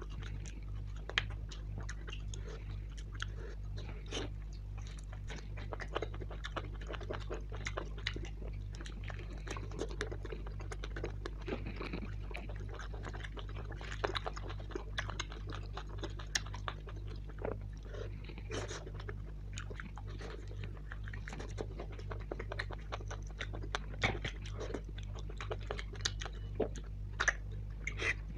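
Close-miked eating sounds of a man chewing and biting bone-in meat curry and puris, eaten by hand: wet chewing with many small irregular clicks and squishes, over a steady low hum.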